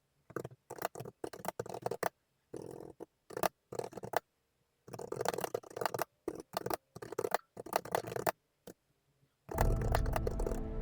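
Typing on a keyboard: short runs of key clicks with silent pauses between them. Background music comes in near the end.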